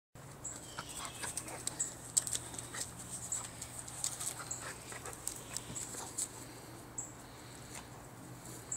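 A dog playing with a rope toy, making short, irregular sounds several times a second.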